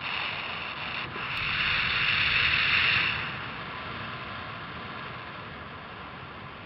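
Wind rushing over an action camera's microphone during a paragliding flight: a steady hiss that swells louder for about two seconds, then settles to a quieter, even level.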